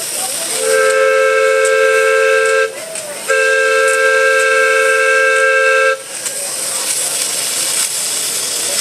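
Steam whistle of a 7½-inch gauge live-steam locomotive giving two blasts, each a chord of several tones. The first lasts about two seconds and the second, after a short break, nearly three. A steady hiss of steam runs underneath and carries on after the whistle stops.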